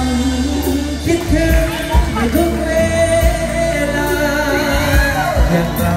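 A male vocalist sings a Thai luk thung song into a handheld microphone with a live band behind him, all amplified through a concert PA. The melody has long held notes, and a heavy bass beat thuds under it.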